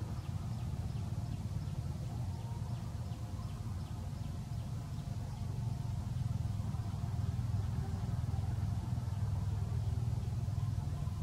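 A steady low engine-like hum, such as a running vehicle or motor, growing a little louder about halfway through. Faint, evenly spaced high ticks sound over it in the first half.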